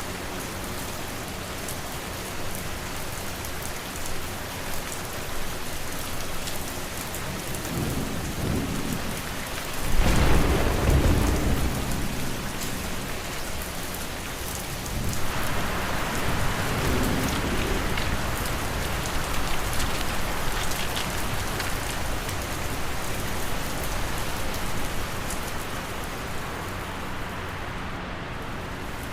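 Steady rain ambience with a faint low fan hum underneath. A loud low rumble swells about a third of the way in and fades over a couple of seconds, and a softer swell follows about halfway through.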